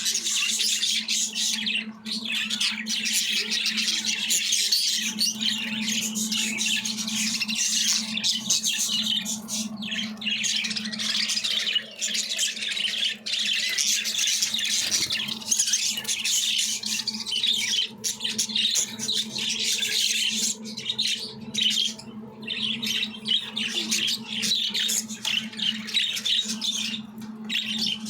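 A group of budgerigars chattering and squawking continuously, dense rapid chirps and scratchy calls overlapping, over a steady low hum.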